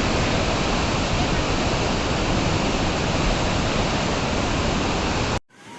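Floodwater rushing in a torrent, a loud steady wash of water noise that cuts off abruptly about five seconds in.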